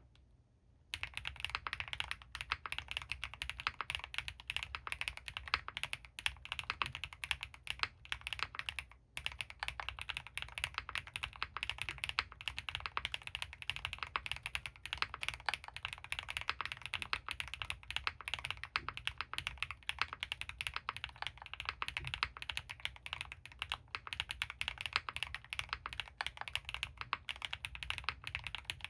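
Continuous typing on an Owlab Mr.Suit mechanical keyboard with Krytox-lubed Gateron Baby Raccoon linear switches, a polycarbonate plate and GMK keycaps. It is a dense stream of keystroke clacks, with a brief pause right at the start and another about nine seconds in.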